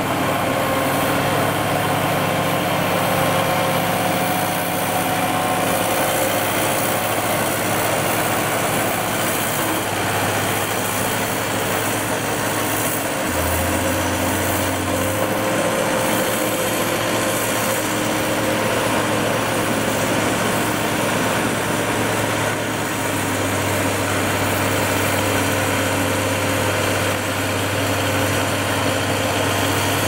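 Diesel engines of a road roller and a Komatsu motor grader running, a steady engine drone whose pitch steps up and down a few times.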